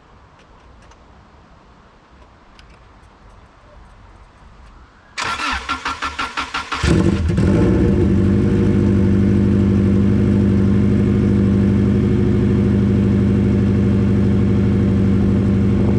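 Subaru Impreza's flat-four engine cranked by the starter for about a second and a half, starting about five seconds in, then catching and settling into a loud, steady idle with no exhaust fitted.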